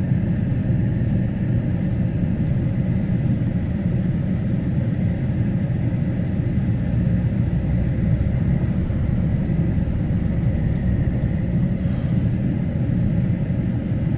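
Steady low rumble of a truck driving, with engine and road noise heard from inside the cab.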